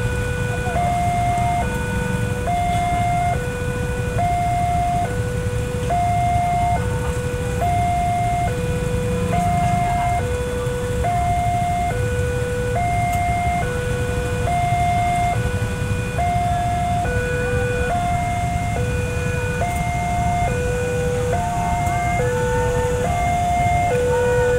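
Electronic railway level-crossing alarm sounding its two-tone warning, a high and a low note alternating about every three quarters of a second, which signals that a train is approaching and the barriers are down. Underneath runs the low rumble of waiting road traffic.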